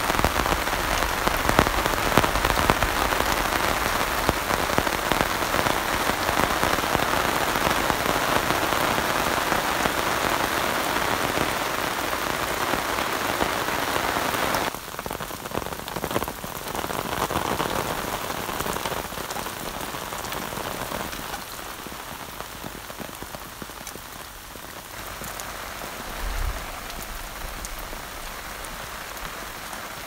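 Heavy rain falling steadily on a canvas tarp overhead, a dense even hiss. About halfway through it cuts to quieter, lighter-sounding rain falling in open forest.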